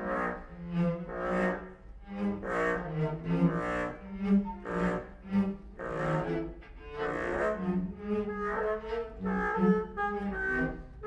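Live mixed chamber ensemble playing a contemporary composition. Bowed strings lead, with low cello notes in short, detached strokes to the fore, and flute joins in.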